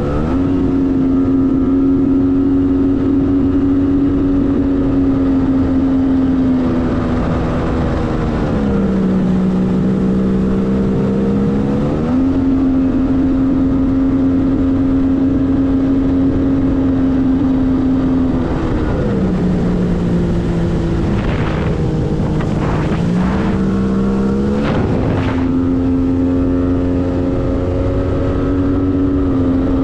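Two-stroke engine of a 1997 Arctic Cat TigerShark Monte Carlo 1000 personal watercraft running at a steady cruise, with the throttle eased off and opened again a few times, about 8 seconds in, around 19 to 25 seconds and near the end. A few short rushes of noise come during the slower stretch around 21 to 25 seconds.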